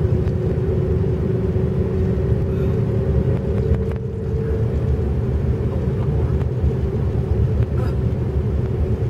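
Steady road and engine rumble of a car heard from inside the moving vehicle, with a steady hum running through it.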